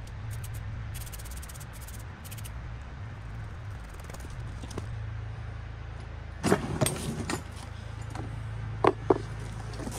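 A man's footsteps on gravel track ballast as he walks up to the work train, then a clatter and two sharp knocks near the end as he handles a long-handled tool at the car. A steady low hum runs underneath.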